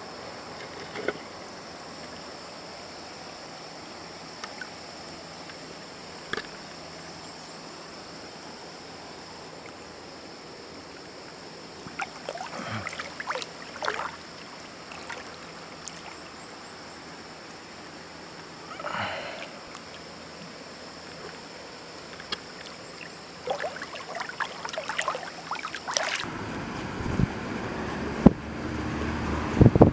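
A river flowing over a stony bed in a steady rush, with a few scattered clicks and knocks. Near the end road traffic noise comes up and grows louder.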